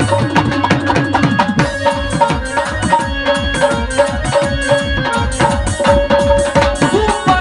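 Live instrumental music: a fast, steady beat on a two-headed barrel drum over held electronic-keyboard notes.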